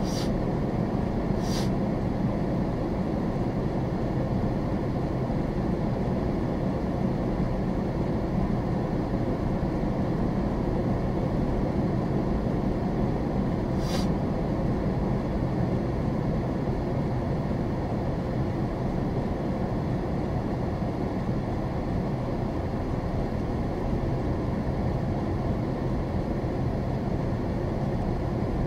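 Steady road and engine noise heard inside a car's cabin while it drives slowly on a freeway, picked up by a dashcam. There are three brief high ticks: two near the start and one about halfway through.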